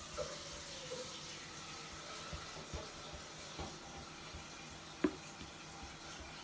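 A spoon pressing and scraping a sticky oat flapjack mixture flat in a baking tray, with soft knocks and one sharper knock about five seconds in, over a steady hiss.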